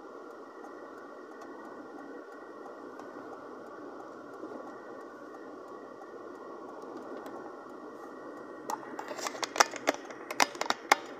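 Steady road and engine noise inside a moving car's cabin. Near the end, a quick irregular run of sharp clicks and cracks.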